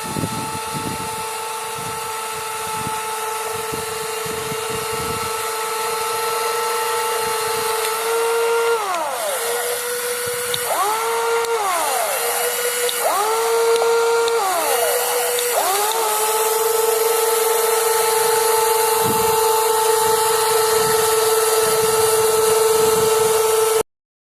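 Electric motors of a WLtoys WL 16800 metal RC excavator whining steadily as it works. The pitch drops and recovers several times midway, with light knocking and rattling underneath. The sound cuts off suddenly near the end.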